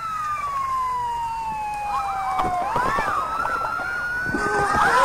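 Siren wailing in a slow cycle, its pitch sliding down for a couple of seconds, then back up, and starting down again near the end.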